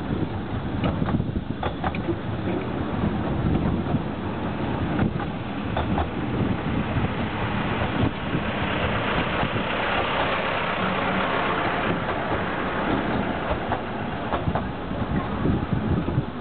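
Narrow-gauge diesel locomotive running past at close range: a steady engine rumble with occasional clicks. It grows fuller and brighter about halfway through as the locomotive comes alongside, then its carriages roll by.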